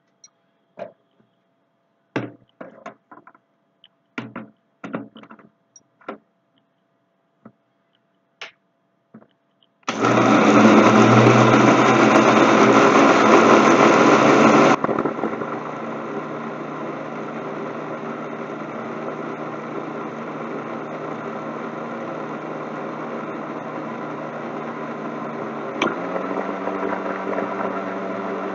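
Indian mixer grinder (mixie) grinding ginger, garlic, tomato, onion and whole spices into a wet masala paste. A few clicks and knocks from setting the jar on the base come first. The motor starts about ten seconds in, runs loudest for about five seconds, then settles to a steady lower hum as the mix turns to paste.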